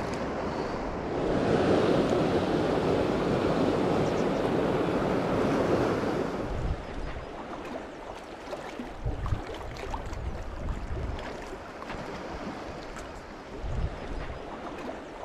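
River water rushing and washing over shoreline rocks, louder for the first several seconds, with occasional low thumps of wind on the microphone.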